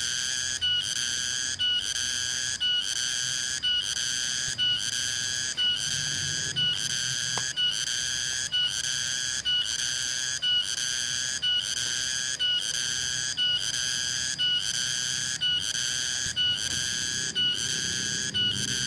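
Cicada (tonggeret) calling loudly: a high, buzzing tone repeated in phrases about once a second, with a short break and a brief higher blip between phrases.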